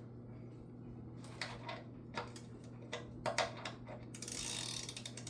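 Hand tools clicking and clinking on metal as a 14 mm wrench is put to the oil pan drain plug, a few separate clicks followed near the end by a rapid rasping run, over a steady low hum.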